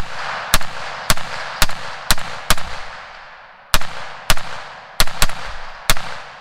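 A .308 PSA AR-10 rifle fitted with a tanker-style muzzle brake, firing about ten semi-automatic shots at an uneven pace, with a pause of over a second in the middle. Each shot is a sharp crack followed by a long echo.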